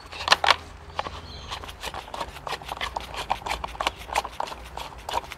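Irregular clicks and knocks of the Ryobi RCS2340B electric chainsaw's sprocket cover being handled and fitted back over the chain and bar.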